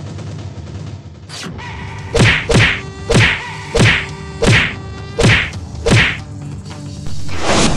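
Punch sound effects from a staged fight: about seven sharp whacks, each with a falling swish, roughly two-thirds of a second apart, over a steady buzzing tone. Near the end a louder whoosh leads into music.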